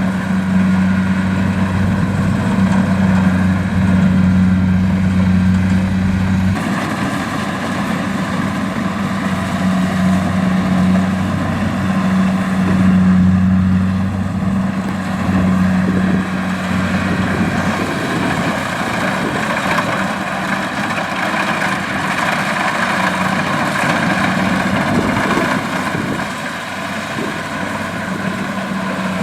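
Kubota rice combine harvester running steadily at work, its diesel engine humming under the broad noise of the machine. The sound shifts abruptly about six and a half seconds in, with the low hum weakening.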